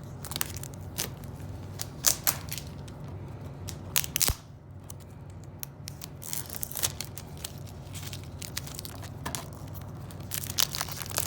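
Plastic shrink-wrap on a DVD case being torn open and peeled off: irregular crinkling with sharp ripping sounds that come in clusters.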